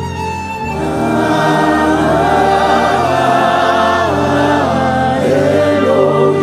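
Congregation and choir singing a slow gospel worship song together, the voices swelling about a second in over sustained low notes.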